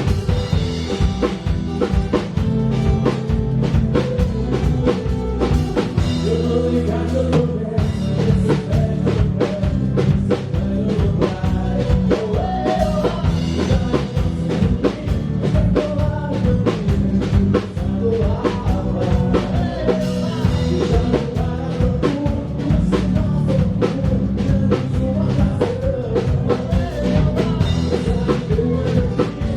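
Live band playing, heard from the stage: a drum kit keeping a steady beat under a bass line, with a voice singing.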